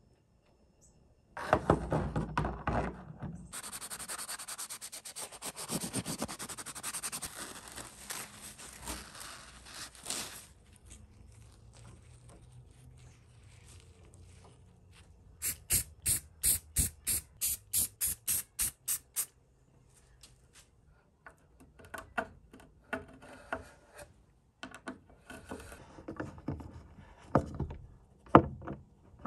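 A steady hiss for several seconds, then a metal lion-head drawer pull rubbed back and forth on a sanding block in about a dozen quick strokes, roughly three a second. Near the end come small clicks and scrapes of a screw being turned in with a hand screwdriver.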